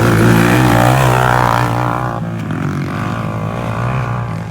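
Yamaha Moto-4 ATV engine revving hard as it passes close, its pitch wavering with the throttle. It is loudest in the first couple of seconds, then fades as it moves away.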